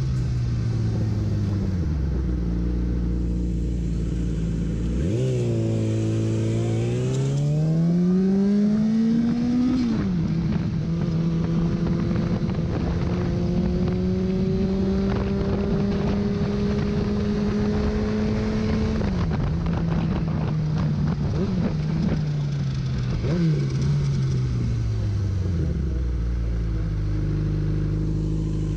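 2005 Yamaha R6's inline-four engine under way. The revs fall and settle low, climb steeply about five seconds in, drop sharply near ten seconds as it shifts up, then hold and creep up before dropping again near nineteen seconds. Near the end the revs fall away to a steady low hum as it slows.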